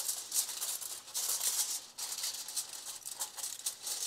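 Aluminium foil crinkling and crackling in irregular bursts as it is folded and pressed into shape by hand.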